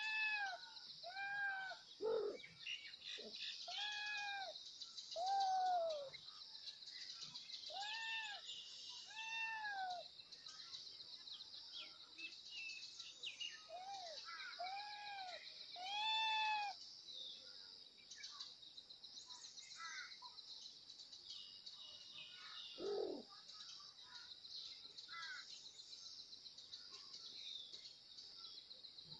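Kittens mewing: short, high calls that rise and fall, about one a second, then thinning out to a few faint ones about halfway through, over a steady high buzz.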